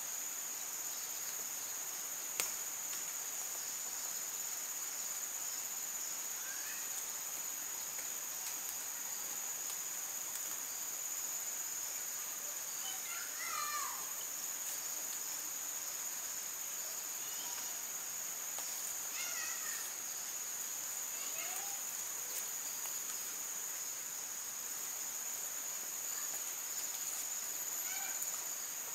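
Steady, high-pitched drone of insects holding two constant tones, with a single sharp click about two seconds in and a few brief faint chirps in the middle.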